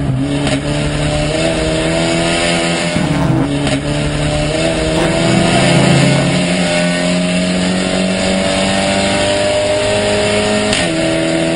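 SEAT León touring race car engine running hard at high revs, its pitch climbing slowly through a gear, with a pitch step about three seconds in and another near the end as it changes gear.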